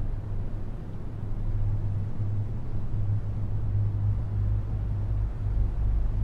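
Ambient music: a low, steady bass drone under a faint hazy wash, its lowest tone swelling louder from about two-thirds of the way in.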